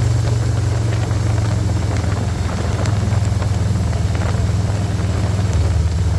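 Harley-Davidson Electra Glide Standard's Milwaukee-Eight V-twin engine running steadily under way on the road, a constant low engine note under a rush of wind noise.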